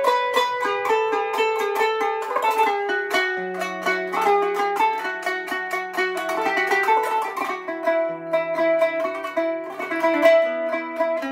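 Kanun (Turkish plucked zither) played solo with finger-ring plectra: a free-rhythm taksim improvisation in makam Hüseynî, quick runs of plucked notes that ring on between strokes.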